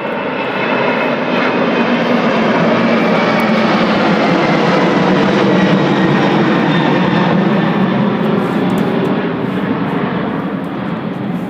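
An aircraft flying past with its engine running as a steady rushing roar. It swells up over about the first second, holds loud, then fades away near the end.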